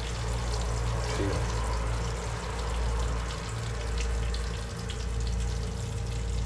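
Stuffed bitter gourds (bharwa karela) frying in oil in a covered pan: a steady sizzling hiss with scattered small crackles, over a steady low hum.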